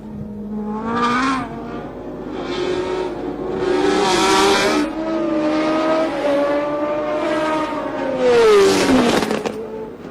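1970s Formula One cars racing past at high revs, several engine notes overlapping and rising and falling as they accelerate and change gear. Near the end one car passes close with its note falling in pitch.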